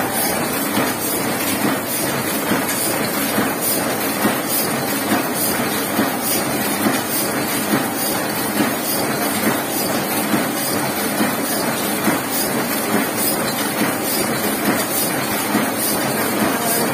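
Heidelberg KORS sheetfed offset press running at speed, a steady mechanical clatter with a regular beat a little faster than once a second as each sheet is fed, printed and delivered.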